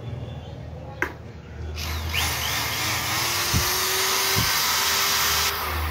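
Ralli Wolf RW-SD10 corded electric screwdriver drill being test-run after repair with its carbon brushes refitted. A click about a second in, then the motor starts and runs steadily with a high whine for nearly four seconds before stopping near the end.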